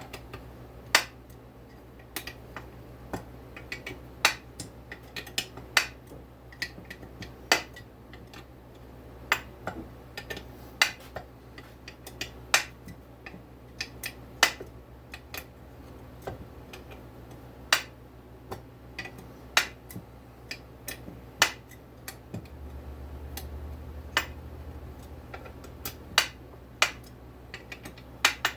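Sharp metallic clicks and clinks, irregularly spaced about one or two a second, from a socket wrench on an engine's case bolts as they are worked back and forth a little at a time to draw the crankshaft into the case. A steady low hum runs underneath and gets louder for several seconds near the end.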